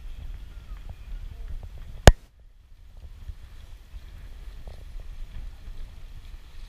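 Low steady rumble of wind on the microphone, broken by one loud, sharp knock about two seconds in.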